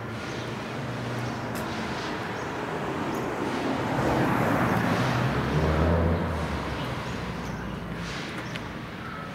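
A motor vehicle passing by in street traffic: its tyre and engine noise builds to a peak about halfway through, with a low engine hum, then fades away.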